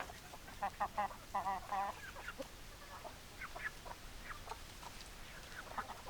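Chickens clucking: a quick run of calls in the first two seconds, then scattered short calls.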